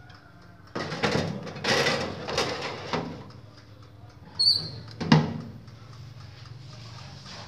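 Metal baking tray scraping and rattling as it is slid onto the wire rack of a Maspion MOT-600 toaster oven. About four and a half seconds in there is a short squeak, then the glass door shuts with a sharp clack, followed by a low steady hum.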